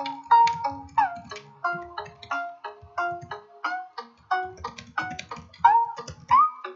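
Instrumental background music: a melody of short pitched notes, about three a second, some of them sliding in pitch.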